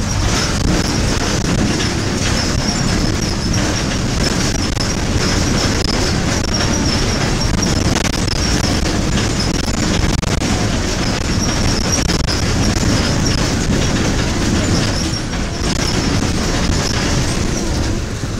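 Moving city bus heard from inside: loud, steady engine and road noise, with a high, wavering squeak from the bus body and fittings throughout.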